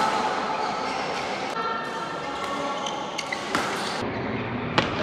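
Badminton rackets hitting a shuttlecock on an indoor court: a few sharp hits, the loudest about three and a half seconds in and another near the end, with fainter taps earlier.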